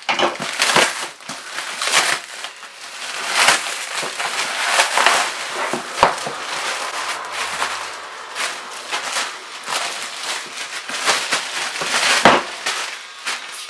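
Shipping packaging being opened and handled by hand: continual crinkling and crumpling with many sharp crackles, the loudest one about twelve seconds in.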